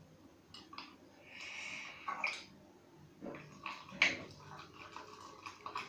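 Slime being stirred in a container: wet squishing with a few sharp clicks of the stirring utensil against the container, the loudest about four seconds in.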